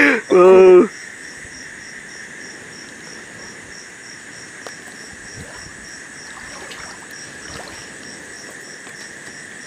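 A short, loud call from a person's voice in the first second, then a night chorus of insects, likely crickets: a steady high drone with a high chirp pulsing about three times a second. A few faint clicks sound under it.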